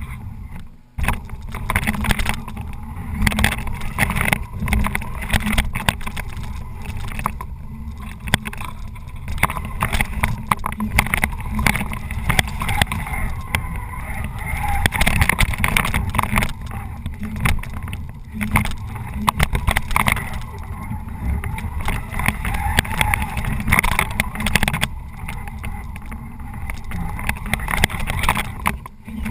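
Tamiya Bullhead RC monster truck's twin electric motors and gearboxes running, with rattling and knocking as it drives through tall grass, heard from on board. The level rises and falls in surges with the throttle and drops briefly about a second in. The truck is running on almost empty batteries.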